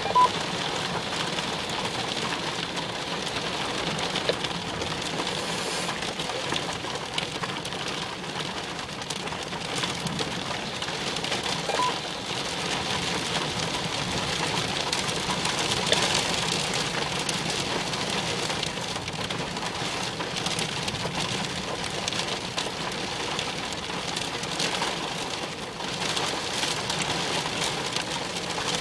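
Steady rain falling in a severe thunderstorm, an even hiss with a few faint ticks of drops.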